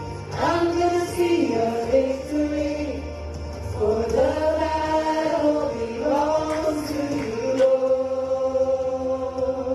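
Church worship music: voices singing a slow melody with long held notes over instrumental accompaniment with a steady low bass.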